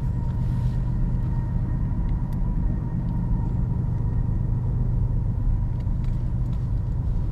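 A steady low motor hum, even and unchanging, with a faint high steady tone over it and a few light ticks.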